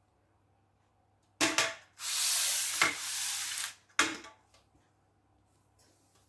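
A spatula scraping sponge-cake batter out of a mixing bowl. A sharp knock comes just before about two seconds of scraping, and another knock follows about four seconds in, with a few light ticks after it.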